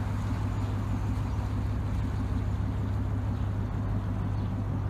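Boat's outboard motor running steadily at low speed across open water, a constant low hum.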